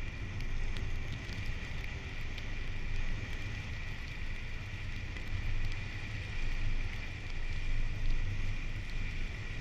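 A car driving: steady road and tyre noise over a low rumble, with a few faint ticks.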